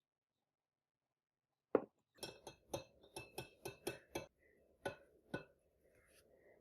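Small hard objects clinking: a single knock, then a quick run of about ten light clinks over two seconds, then two more.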